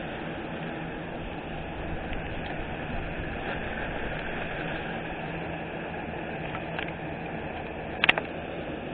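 Steady background noise, a hiss with a faint low hum, with a sharp click about eight seconds in.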